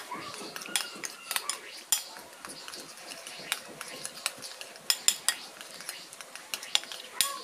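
Metal spoon stirring a flour batter in a ceramic bowl, clinking and scraping against the bowl in quick, irregular clicks.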